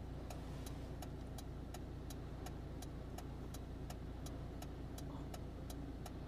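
Car engine idling with a low steady hum while the indicator relay ticks evenly, about three clicks a second.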